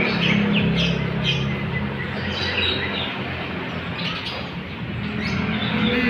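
A chorus of many caged songbirds chirping and calling over one another in quick, short notes.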